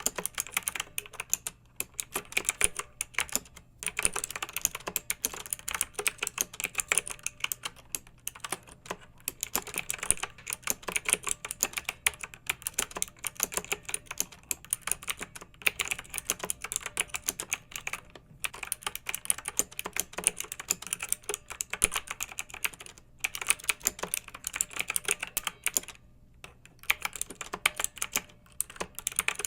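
Clicky mechanical keyboard being typed on in a fast, steady stream of keystrokes, broken by brief pauses a few times.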